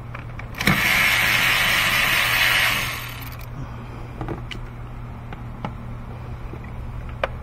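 A loud, steady hiss of rushing air, typical of a shop compressed-air tool, starts with a click a little under a second in, lasts about two and a half seconds and fades out. Under it a steady low hum runs on, with scattered light clicks of parts and tools being handled in the engine bay.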